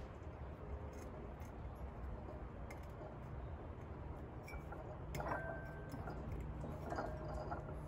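Faint handling sounds of a soaked bamboo handle being fitted onto a ceramic teapot: scattered small clicks and light clinks, with two short scuffs about five and seven seconds in.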